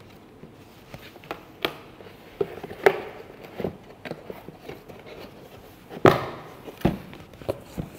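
Unboxing handling sounds: irregular light knocks, taps and rubs of cardboard packaging and parts against a glass tabletop, with the loudest knocks about three and six seconds in.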